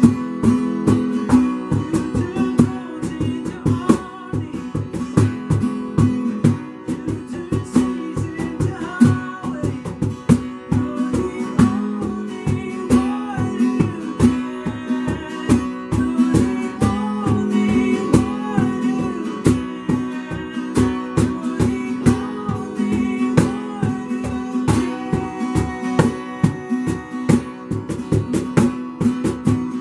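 Acoustic guitar strummed steadily in a worship song.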